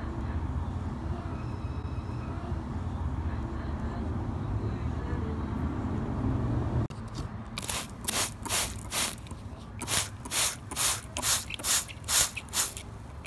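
A steady low rumble, then after an abrupt cut about seven seconds in, a run of rhythmic swishing strokes about two a second, water being sloshed around a toy car in a small plastic tub.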